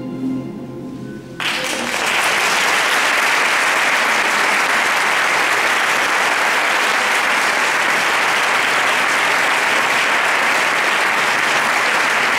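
The last chord of the choir and orchestra dies away, and about a second and a half in, audience applause breaks out suddenly and carries on steadily.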